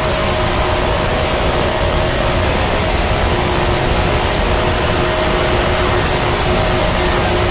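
A steady noise drone with a low rumble and two faint held tones underneath, like engine or air-handling noise, unchanging throughout.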